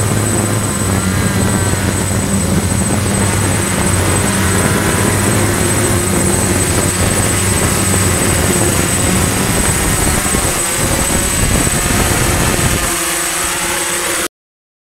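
DJI F550 hexacopter's six electric motors and propellers buzzing in a close hover and descent, with a low steady hum and a thin high whine. The low hum falls away about thirteen seconds in as the craft settles on the ground, and the sound cuts off abruptly just after.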